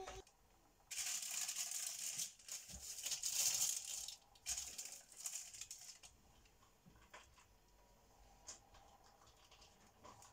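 A sheet of baking paper rustling and tearing as it is pulled out and spread on a baking tray. It starts about a second in, is loudest for the next few seconds and dies down after about six seconds to faint handling noises.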